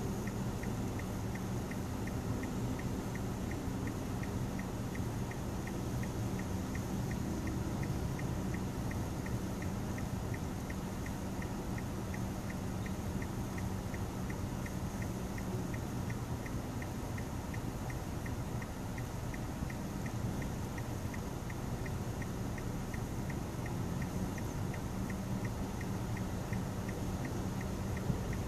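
Steady low hum of a car idling while stopped in traffic, heard from inside the cabin. A faint regular tick repeats about twice a second.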